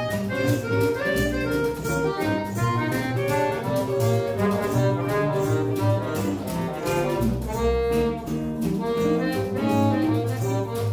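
Small acoustic jazz ensemble playing: plucked double bass, archtop guitar strumming steady rhythm chords, and a small plucked lute and an accordion carrying quick melody lines.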